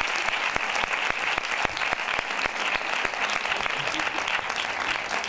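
Audience applause: many hands clapping steadily after a reading.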